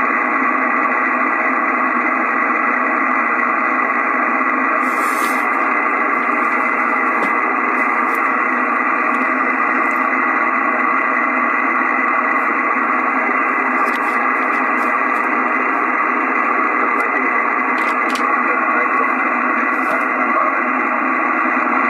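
Steady hiss of shortwave band noise from an Icom IC-756PROII HF transceiver tuned to 7.086 MHz lower sideband, narrowed to the receiver's voice passband, with faint steady tones in it and no clear signal.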